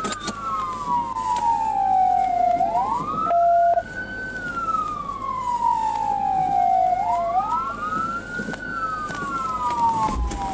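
Police car siren on wail: a tone that sweeps up quickly and falls slowly, about once every four seconds, with two wails running slightly out of step. A short steady beep sounds about three and a half seconds in.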